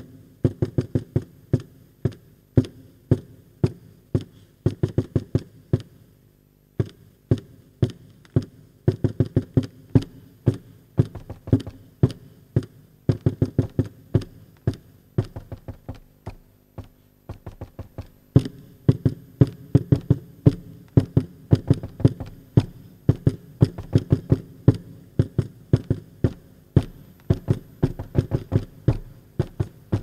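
Two inflated rubber balloons tapped and struck by hand close to a microphone. They give a quick, uneven run of dull taps, with a short lull about six seconds in.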